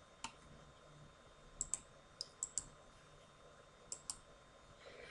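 A few faint, sharp clicks, several in quick pairs, over quiet room tone.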